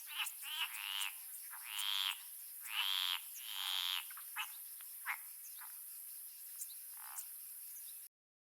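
A string of short, raspy, croaking animal calls, frog-like, repeated about once or twice a second and then thinning to a few short chirps, over a steady high insect drone. The sound cuts off abruptly near the end.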